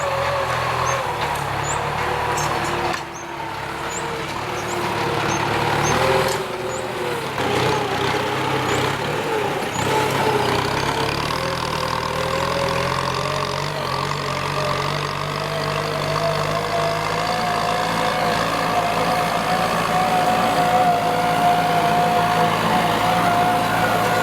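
Kubota M9540 tractor's diesel engine running under ploughing load. Its pitch wavers and drifts up and down as the load changes.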